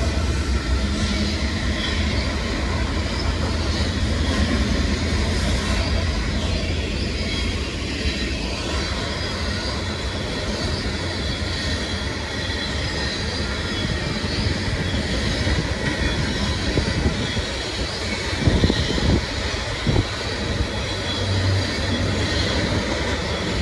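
CN freight train cars rolling past on the rails in a steady, continuous rumble, with some wheel squeal. A few sharp clanks come about two-thirds of the way through.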